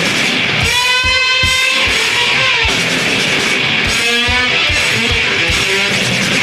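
Rock music: distorted electric guitar holding long, bending and wavering notes over drums, with a kick drum thumping irregularly underneath.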